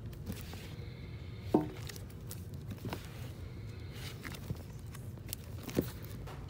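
Shrink-wrapped vinyl record sleeves being flipped through in a bin: several sharp clacks and plastic rustles as the sleeves knock against each other. The loudest clack comes about a second and a half in and another near the end, over steady low background noise.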